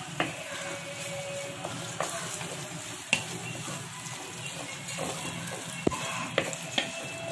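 Onion-tomato masala with ground spices frying and sizzling in oil while a wooden spatula stirs it, with a few sharp knocks and scrapes of the spatula against the pot.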